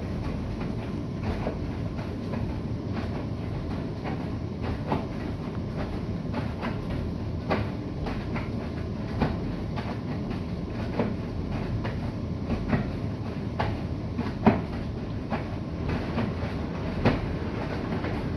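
Bosch i-Dos washing machine tumbling a wash: a steady low rumble from the turning drum, with irregular sharp knocks and clicks about every one to two seconds as the laundry falls.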